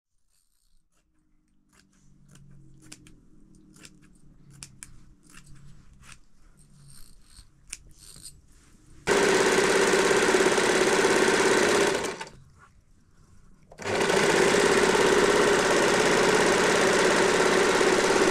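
Kachiran domestic electric sewing machine running as it stitches fabric, in a steady even run. It starts about halfway through after a stretch of faint clicks and rustling, stops for about two seconds, then starts again.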